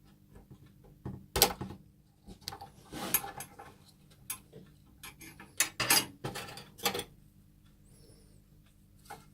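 Hard objects being handled: a run of irregular knocks, clatter and scraping over several seconds, with faint ticks before and after.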